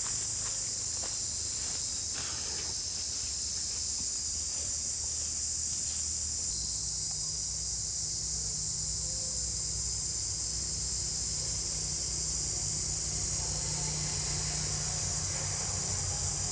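Steady high-pitched drone of forest insects, with a low hum underneath and a few faint rustling ticks near the start.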